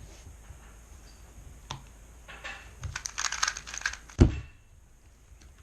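Rapid clicking of a plastic 2x2 speed cube (MGC 2x2 V2) being turned quickly for about a second and a half during a speedsolve, ended by a sharp thump.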